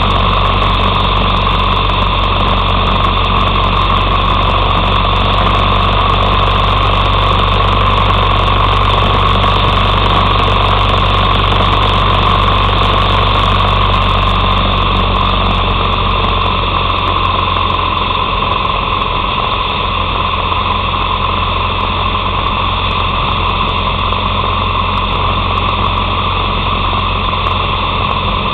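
Harley-Davidson Sportster 883's air-cooled V-twin engine running steadily at road speed, heard from a camera on the handlebars. The sound eases off slightly a little past the middle.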